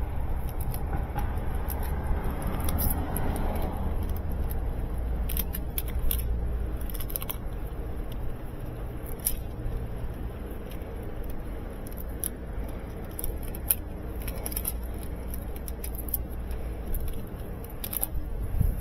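Hands working waterproof tape around a corrugated plastic washer drain hose: scattered short crinkles, clicks and scrapes of tape and hose being handled, with a strip pulled off the roll near the end, over a steady low rumble.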